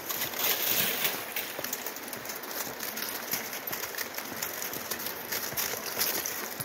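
Dogs' paws crunching and scraping across a crust of ice and frozen slush, an uneven run of crackly steps.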